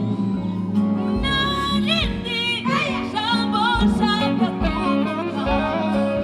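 A woman singing lead in a live gospel song, her voice sliding and wavering through ornamented runs, over band accompaniment with steady low notes.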